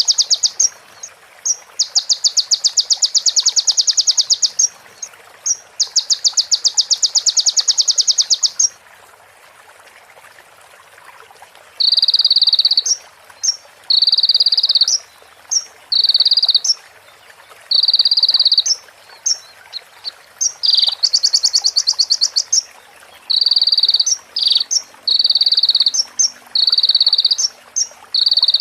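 Sunbird (konin) singing in rapid, high buzzing trills, imitating the calls of a female prenjak (prinia) and a ciblek. First come long trills of two to three seconds. After a short pause, they give way to shorter trills about a second long, repeated every couple of seconds.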